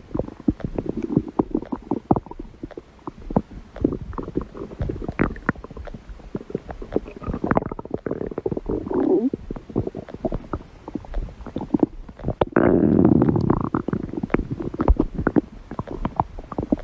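A person's stomach growling and gurgling: a dense run of short pops and bubbling sounds, with a longer, thicker rumble about twelve seconds in.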